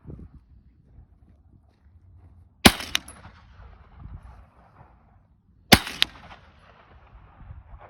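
JR Carbine 9mm rifle firing two shots about three seconds apart, each crack trailed by an echo that fades over a couple of seconds.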